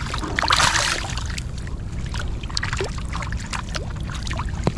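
Shallow muddy water splashing and sloshing around a fishing net, with many small trickling splashes and a louder splash about half a second in, over a steady low rumble. A sharp tap comes near the end.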